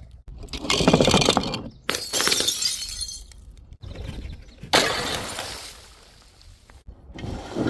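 Glass bottles smashing, several separate crashes a second or a few seconds apart, each followed by the tinkle and rattle of shards settling.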